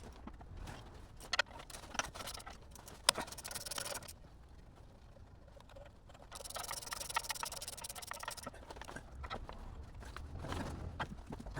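Hand tools and metal parts clinking and scraping as a starter motor is unbolted from under a Jeep, with sharp knocks about 1.5, 2 and 3 seconds in, and two stretches of a steady rasping hiss.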